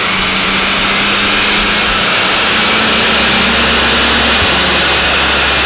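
Steady machinery noise in a chassis dyno cell: an even, loud rushing with a low hum underneath, with no revving or change in pitch.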